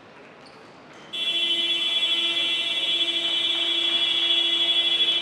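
Basketball arena's game-clock buzzer sounding one long, loud, steady blast starting about a second in, as the clock runs out to end the game.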